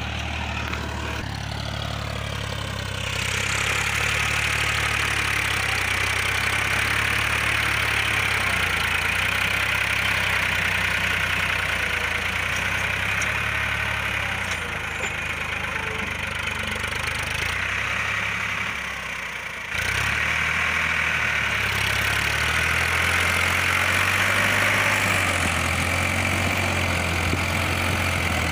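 Farmtrac 45 tractor's three-cylinder diesel engine running steadily under load while pulling a tine cultivator through dry soil. The sound dips briefly and breaks off sharply about twenty seconds in, then carries on as before.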